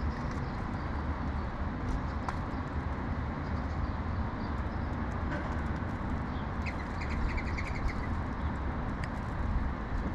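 Sparrows chirping, with a quick run of chirps about seven seconds in, over a steady low rumble of city traffic.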